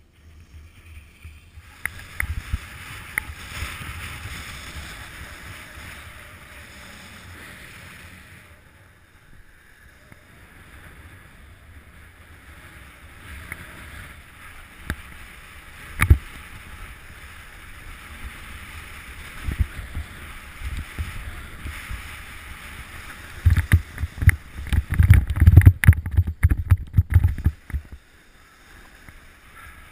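Wind rushing over an action camera's microphone during a snowkite ride across snow, a steady hiss with low buffeting that gets heavy and gusty for several seconds near the end. One sharp knock about halfway through.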